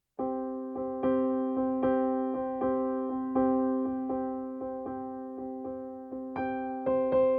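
Background music: a piano playing slow, gentle notes over held chords, starting suddenly just after the opening, each note struck and fading, with higher notes joining near the end.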